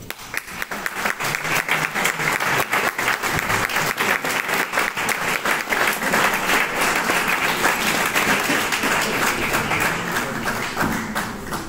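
Audience applauding: steady, dense clapping that eases off near the end.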